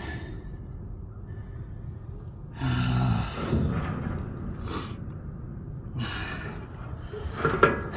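A man breathing hard and letting out a strained grunt of exertion while handling a heavy load, over a steady low wind rumble on the microphone; a few sharp knocks near the end.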